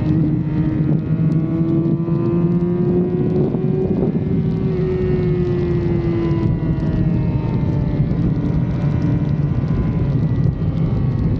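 2006 Yamaha R6 inline-four engine running at a steady cruise, its pitch rising slightly and then easing back down, with wind noise over it.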